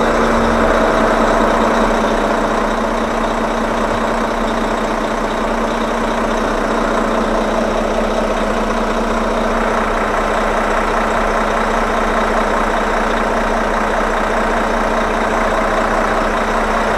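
A vehicle's engine running steadily, a constant drone with no change in speed.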